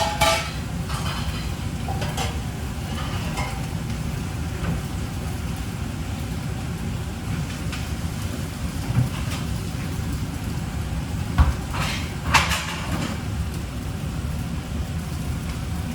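A steady low rumble with the scattered knocks and clinks of kitchen work, the loudest two about eleven and twelve seconds in.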